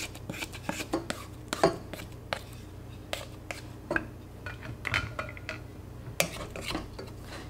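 A plastic spatula and a wooden turning stick scrape and knock against a stainless steel saucepan as stiff pounded yam dough is scraped down from the sides. The knocks and scrapes come irregularly, about one or two a second.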